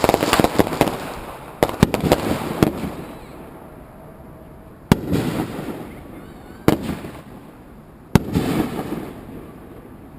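Consumer aerial fireworks going off: a dense crackle at the start dies away, then single sharp bursts come every second or two, several followed by a trailing crackle.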